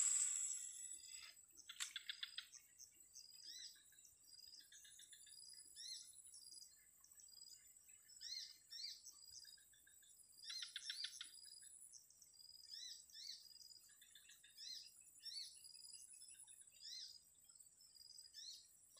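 Faint chorus of birds chirping in short repeated calls over a steady high-pitched insect drone. Twice, about two seconds in and again around ten seconds, a brief rattling trill stands out.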